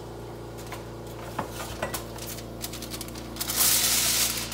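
Sheet of aluminium foil rustling and crinkling as it is handled to cover a baking pan, starting loudly about three and a half seconds in, after a few light taps and clicks.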